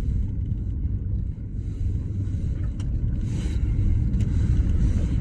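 Jeep Grand Cherokee engine running at low revs with a steady low rumble, the vehicle in four-wheel-drive low lock creeping forward through deep snow.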